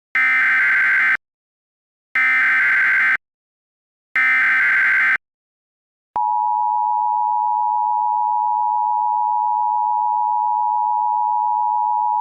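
Emergency Alert System SAME header: three one-second bursts of buzzing digital data about a second apart. About six seconds in they give way to the steady two-tone EAS attention signal (853 and 960 Hz together), marking the start of an emergency alert broadcast.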